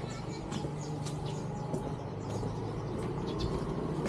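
A small vehicle engine runs steadily at low revs while birds chirp repeatedly in short, high calls.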